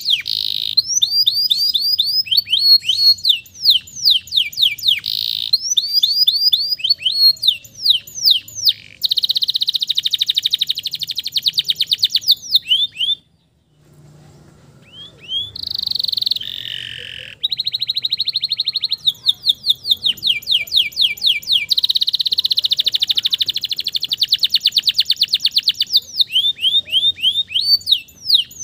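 Male domestic canary singing: fast runs of repeated sweeping notes alternating with long, rapid trills, with a brief pause a little under halfway through.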